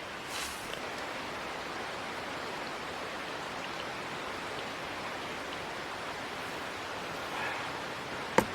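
Steady, even hiss of outdoor ambient noise, with a single sharp click near the end.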